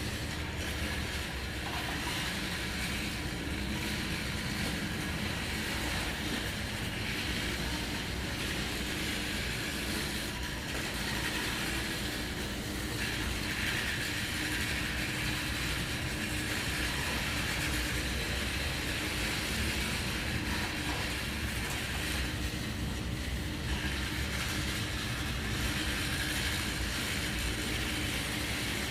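Backhoe loader's diesel engine running steadily, with a hiss over its low hum.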